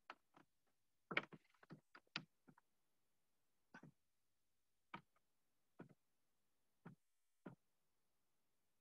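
Faint clicks and taps of a stylus on a drawing tablet: a quick cluster in the first three seconds, then single taps about once a second.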